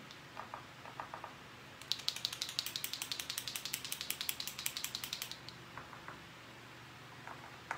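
Paint pen being shaken: the mixing ball rattles inside the barrel in a fast, even run of clicks, about ten a second, starting about two seconds in and lasting about three and a half seconds.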